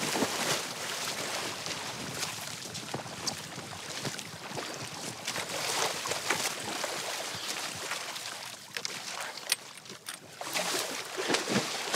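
Water splashing and sloshing in a hole cut in the ice as a person moves through it, with many small splashes.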